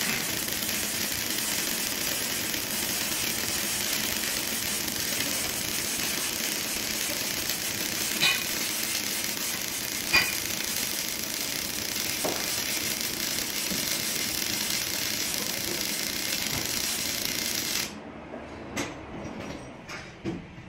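MAG welding arc on a steel wall crackling and hissing steadily, with two sharper pops about two seconds apart. The arc cuts off suddenly near the end, leaving a few faint knocks.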